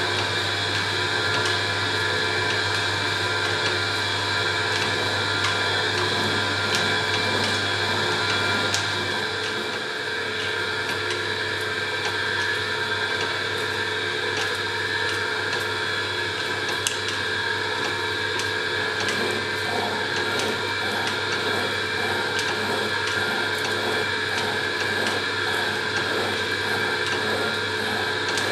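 1850s Sharp & Stewart belt-driven slotting machine at work, its ram stroking up and down about one and a half times a second as the tool cuts a bearing housing. The strokes sit over the steady running noise of the belt drive.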